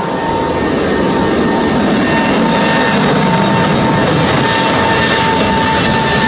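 Boeing 747-8F freighter's four GEnx turbofan engines at takeoff power: a loud steady jet roar with a whining tone over it, swelling slightly in the first second and then holding.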